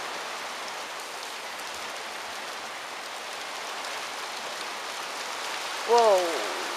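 Heavy driving rain pouring down steadily in a storm. About six seconds in, a man gives one short exclamation that falls in pitch.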